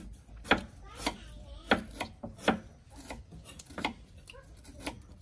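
A knife chopping on a wooden cutting board: a run of sharp, irregular strokes, roughly one to two a second.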